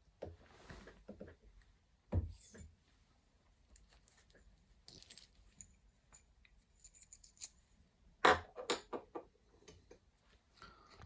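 Small metal parts being handled: scattered clicks, light scrapes and knocks, with a single knock about two seconds in and a short clatter of several knocks about eight seconds in. The grinder's motor is not running.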